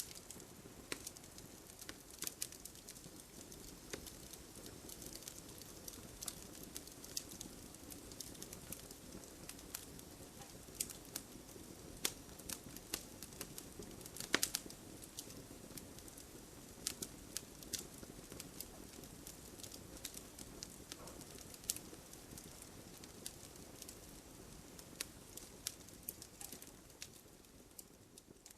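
Wood fire crackling in a fireplace: irregular sharp pops and snaps over a soft low rush of flame, with one louder pop about halfway through, dying down near the end.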